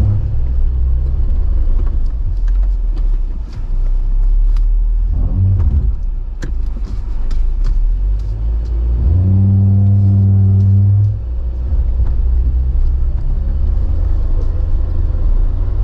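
Jeep Wrangler JL engine rumbling low as it crawls over rocks, with scattered knocks and clicks throughout. About nine seconds in the engine note rises and holds steady under load for about two seconds, then drops back.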